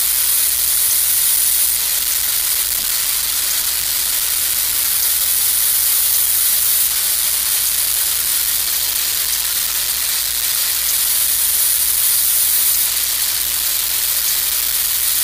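A steady high hiss, even throughout, with nothing else standing out.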